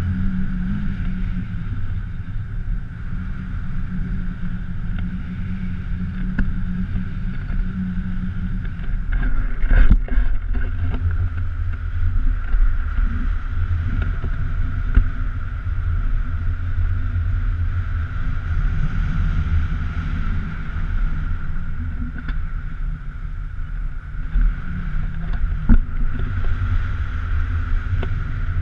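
Airflow of paraglider flight buffeting a GoPro camera on a pole mount: a steady wind rumble with a thinner steady tone above it. A couple of short knocks, the loudest about ten seconds in.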